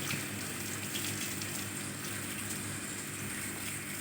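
Water running steadily, a continuous even splashing rush, as a dog is washed, with a faint steady low hum underneath.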